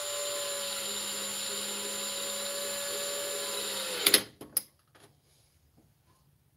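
Cordless drill-driver running steadily for about four seconds, driving a screw into the plastic back cover of a TV. It stops abruptly, with a few sharp clicks.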